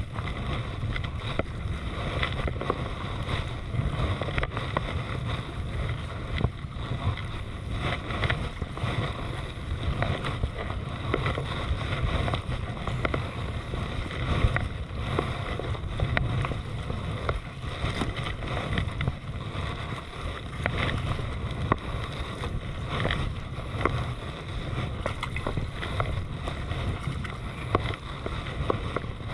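Kayak being paddled on choppy sea water: a double-bladed paddle dips and splashes with each stroke, with many small splashes and drips, over steady wind rumble on the microphone.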